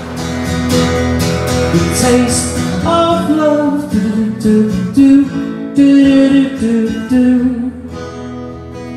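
Live solo acoustic performance: a strummed acoustic guitar with a man singing over it, getting quieter about eight seconds in.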